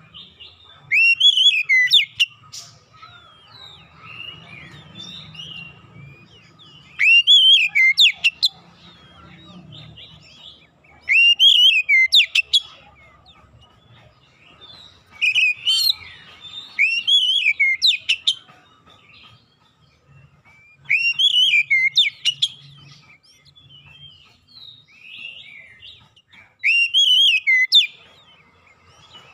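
Oriental magpie-robin singing in short loud phrases about every five seconds, six in all: clear whistled notes that rise and fall, each phrase ending in a quick run of sharp high notes.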